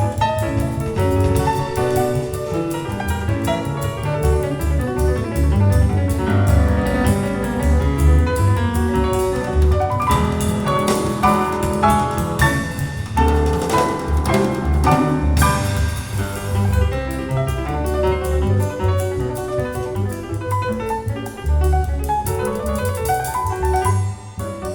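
Music with piano and double bass, jazz-like, played back over a Viva Audio tube-amplified hi-fi loudspeaker system and picked up in the room. The level drops away near the end.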